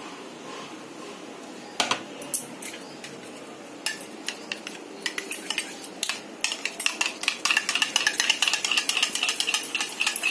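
Kitchen utensils clinking: a few separate knocks at first, then from about six seconds in a fast, continuous clicking and scraping of a spoon stirring in a metal pan.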